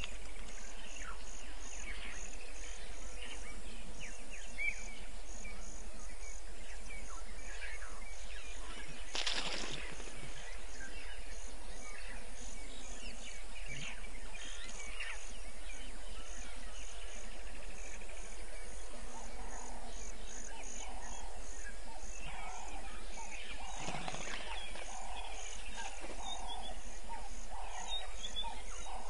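Evening bush ambience: insects chirping in a high, even pulse, over a steady low hum. A brief burst of noise comes about a third of the way in, and a run of lower repeated calls comes in the last third.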